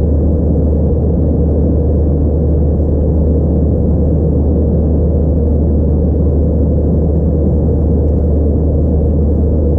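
Steady low cabin drone of an Airbus A321-211 in flight, heard inside the cabin by the wing: the hum of its CFM56 turbofan engines mixed with airflow rush, unchanging throughout.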